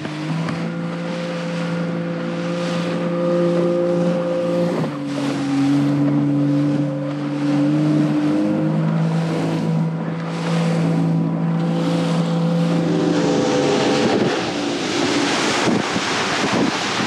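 Outboard motor of a small open fishing boat running steadily under way, its pitch shifting a couple of times, over wind and water noise. Near the end the motor fades and the rush of wind and spray from the moving hull takes over.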